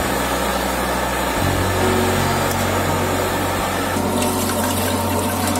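Sambar sloshing as it is ladled in a large steel cooking pot, then liquid pouring through a perforated strainer into a steel bucket from about four seconds in, over a steady rushing noise with a low hum.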